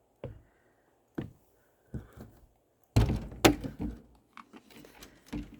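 A string of separate thunks and knocks, the loudest cluster about three seconds in: the travel trailer's entry door being opened and its steps climbed.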